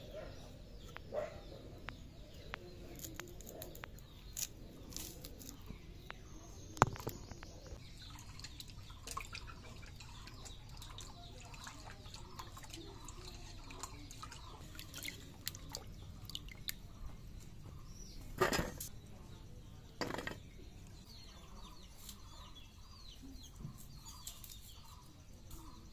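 Small taro corms being peeled and cut against a bonti blade, with scraping and scattered sharp clicks and knocks, the loudest about seven seconds in, and water splashing as the peeled corms are washed in a pot. Birds chirp repeatedly in the background.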